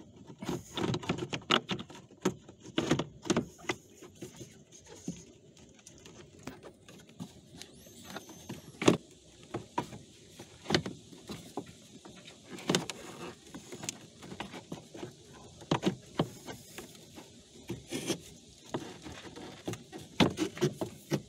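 Plastic cabin air filter housing and cowl panel of a BMW X5 E53 being handled: irregular plastic knocks, clicks and rattles, with the sharpest knock about nine seconds in.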